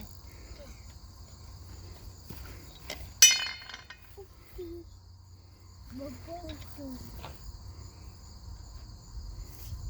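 A single sharp metallic clink that rings briefly about three seconds in, metal on metal as lug nuts and tools are handled at the baler wheel. Insects trill steadily throughout, and a child's short vocal sounds come a few seconds later.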